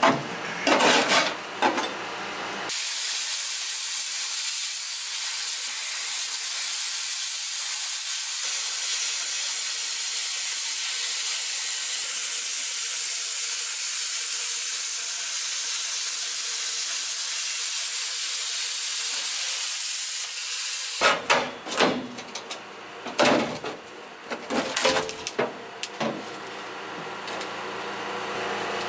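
A few sharp knocks on rusted sheet steel. Then a plasma cutter runs with a steady hiss for about eighteen seconds as it cuts through the rusted rear body steel of a 1964 Toyota Land Cruiser FJ40. About twenty seconds in, the hiss stops and irregular metal clanks and knocks follow as the cut-out rusty panel is worked loose.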